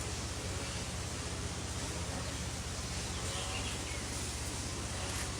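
Steady background noise with a low hum, and a few faint bird chirps.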